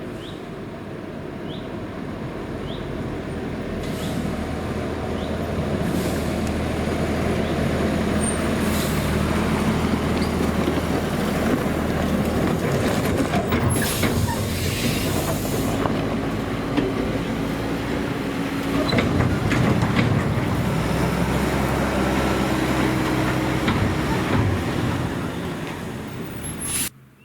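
Heavy diesel harvest machinery working close by, with engine tones shifting in pitch over a dense mechanical din. It grows louder over the first several seconds as it approaches, stays loud, then cuts off abruptly near the end.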